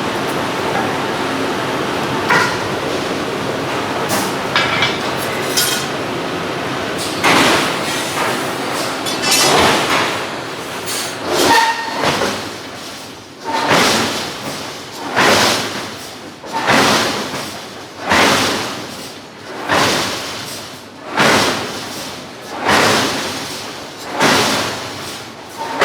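Forge shop din with a few metal clinks, then, from about seven seconds in, a hydraulic forging hammer striking hot steel in a steady rhythm: a dozen or so heavy blows about one every one and a half seconds, each with a short metallic ring.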